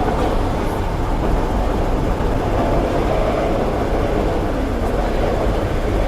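Paris Métro train running between stations, heard from inside the car: a steady, loud low rumble of wheels and running gear on the track.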